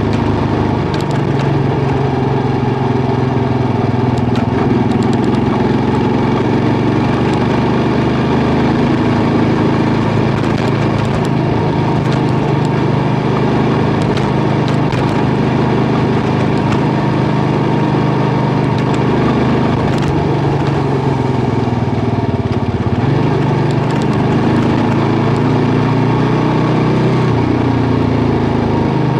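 Kawasaki KLR650's single-cylinder four-stroke engine running under way at a steady road speed on gravel. The engine note dips and recovers about a second in and twice near the end, over a steady rush of tyre and road noise with scattered small ticks.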